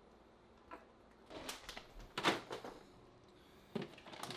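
Short household handling noises: a brief burst of rustling and clatter about a second and a half in, then a couple of light knocks near the end as something goes into a lidded kitchen trash bin.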